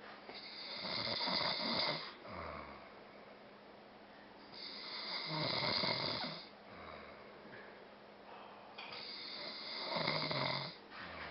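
A man snoring in his sleep: three long snores about four seconds apart, each followed by a shorter, quieter breath.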